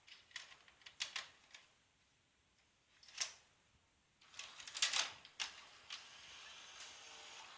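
Panasonic NV-HS950 VCR's tape-loading mechanism clicking and clacking, with a quick cluster of clicks about four to five seconds in, then a faint steady hiss. The deck has a fault where the tape won't start or eject.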